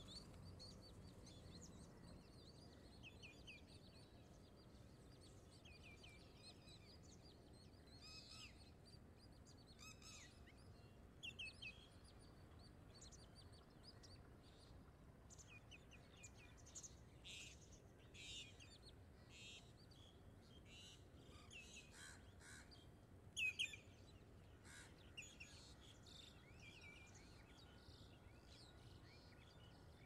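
Faint, high chirps and short calls of small birds, scattered throughout over a quiet background hiss, with louder calls about 11 seconds in and a short, loud cluster about 23 seconds in.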